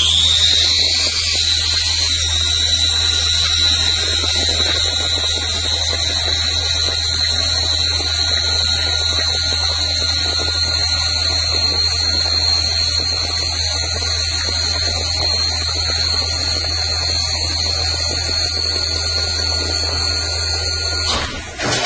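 CNC lathe running a grooving cut on metal: a steady high whine that rises in pitch over the first second and then holds, over a low hum and a rush of cutting noise. Everything stops abruptly shortly before the end.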